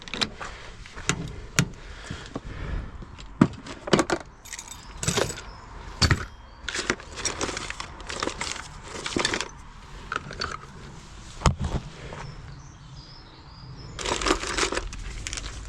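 Irregular metallic clinks and rattles of small hard objects being handled, with a burst of rustling near the end.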